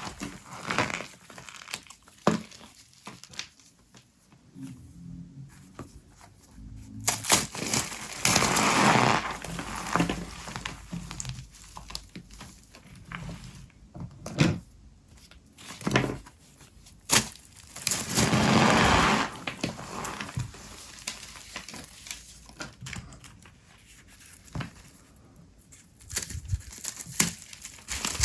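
Brittle microwave-puffed soap mixed with starch being crushed and broken apart, crunching and crackling in bursts with sharp snaps between quieter pauses.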